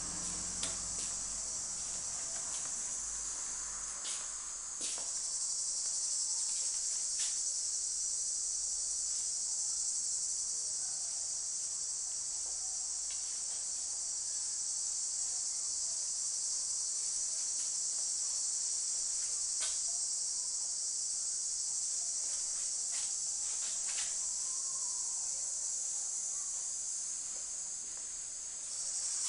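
Steady high-pitched drone of cicadas, a dense unbroken insect chorus that grows a little louder about five seconds in and dips just before the end. A few faint clicks and knocks sound over it.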